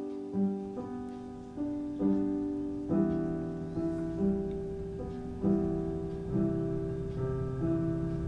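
Slow, gentle solo piano music: soft chords struck about once a second and left to ring.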